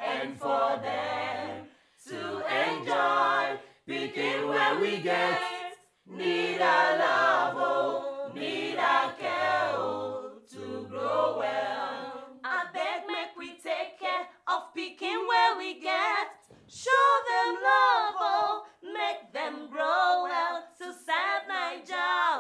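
Unaccompanied choir singing a song in phrases. The low voices drop out about halfway through, leaving higher voices.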